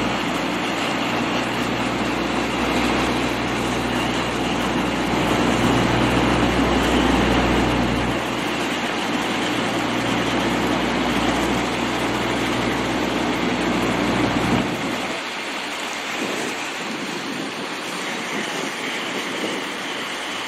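Heavy machinery engine running steadily under a constant rushing hiss. About fifteen seconds in, the low engine hum drops away and the hiss goes on.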